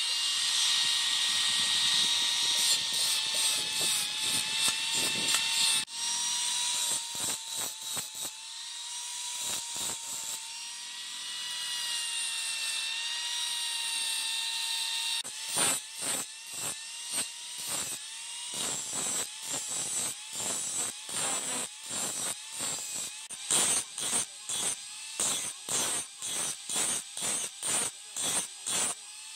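Electric angle grinder running with a steady motor whine as its thin cutting disc grinds through a steel knife blade. About halfway through, the sound changes to a flap disc grinding the blade in a quick run of short strokes, roughly two a second.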